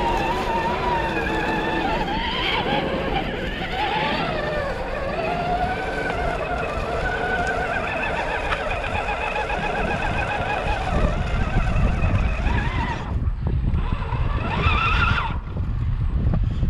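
Scale RC rock crawler's electric motor and gear drive whining, the pitch wavering up and down with the throttle as it crawls over rock, over a low rumble.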